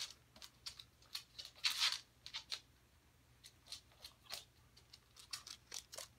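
Dogs' claws clicking and scrabbling on a hardwood floor as a husky and another dog play, in quick irregular taps. A longer scuffling scrape comes a little under two seconds in.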